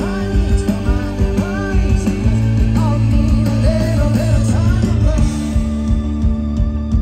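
Indie rock band playing live through a large stage PA: sung vocal over electric guitars, bass and drums. The singing stops about six seconds in while the band plays on.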